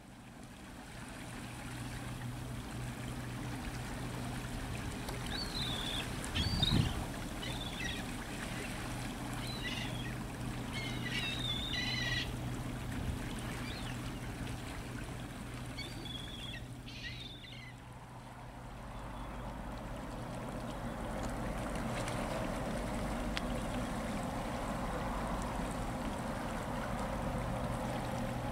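Low steady engine drone carrying across the water from a departing cargo ship and the tug working alongside it. Small birds chirp now and then in the first two thirds, and there is one thump about seven seconds in. Wind and water noise on the microphone grows in the last third.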